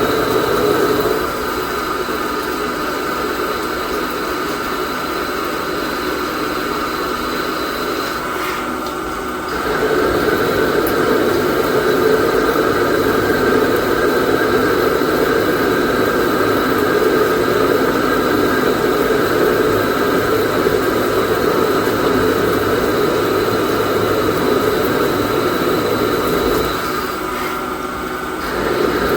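Microcut Challenger BNC-1840 CNC lathe running under program: a steady machine hum with fixed whining tones. It gets louder about a third of the way in and dips briefly near the end.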